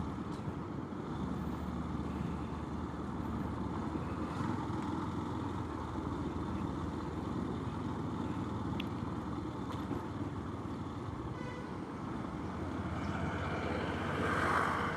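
Steady motorcycle riding noise, engine and wind rumble, heard through a helmet-mounted wireless mic. It swells slightly near the end.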